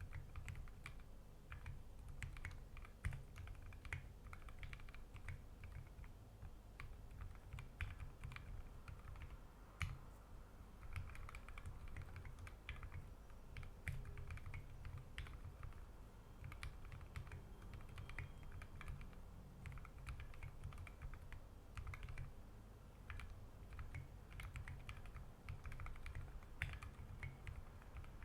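Steady, continuous typing on a 60% mechanical keyboard with Gateron Ink Black v2 linear switches, lubed with Krytox 205g0. The board has an aluminium plate and SA-profile keycaps. The keystrokes come as a dense, irregular stream of clacks with a low thock under each.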